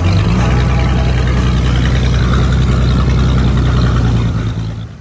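1957 Chris Craft sea skiff's inboard flathead engine running steadily at cruising speed, with water rushing in the wake behind the hull. The sound fades down near the end.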